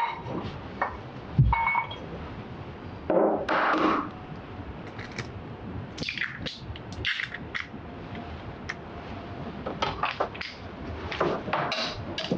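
Kitchen prep: a low thunk about a second and a half in, then eggs tapped and cracked open over a plastic measuring jug in short bursts of clicks and cracks. Near the end the metal whisk of a hand blender knocks and clicks against the jug.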